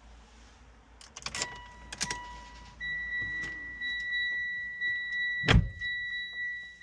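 Keys clicking and jangling, then a steady high-pitched electronic chime from the Mitsubishi Evo X's dashboard sounding from about three seconds in as the key goes into the ignition. One heavy thump a little before the end.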